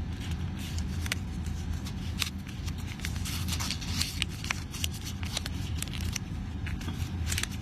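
Colored printer-paper origami units rustling and crackling as they are slotted together and creased, with scattered short sharp paper clicks over a steady low hum.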